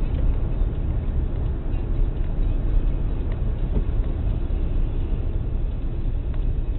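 Steady low rumble of a car in motion, engine and road noise heard from inside the cabin through a dashcam's microphone.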